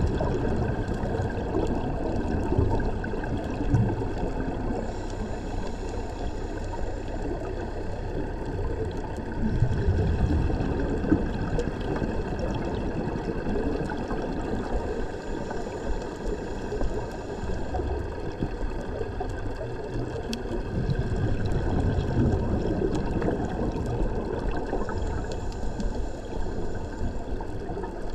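Muffled underwater noise through a camera housing, with a scuba diver's regulator breathing: a faint high inhale hiss about every ten seconds, three times, and low rumbling swells of exhaled bubbles between them.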